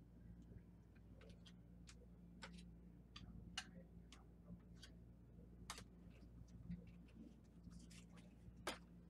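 Faint, irregular sharp clicks and flicks of trading cards being handled and set against a plastic card stand, over a low steady room hum.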